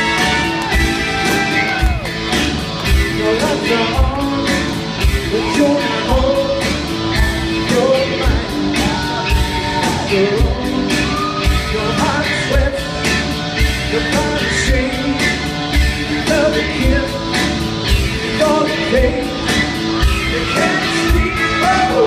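Live rock-and-roll song: a male lead singer over a band with a steady drum beat.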